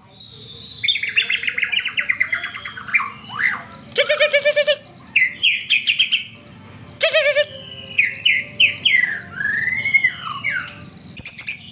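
White-rumped shama singing a fast, varied song: a rapid trill, two short harsh buzzy notes, then a run of rising and falling whistled slurs.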